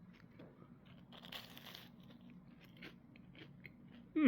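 Close-up crunching and chewing as a person bites into a crispy microwave-toasted sandwich: scattered crisp crackles, with a louder crunch about a second and a half in. Near the end a short voice sound falls in pitch and is the loudest moment.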